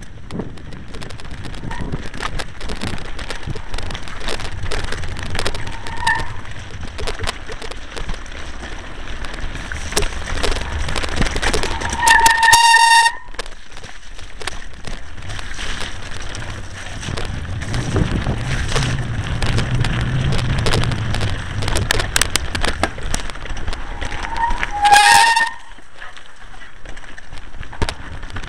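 Mountain bike riding fast down a rough, wet, stony track: a continuous rattle of the bike and camera over rocks, tyre noise and wind on the microphone. The brakes squeal sharply about twelve seconds in and again near the end, each time for about a second.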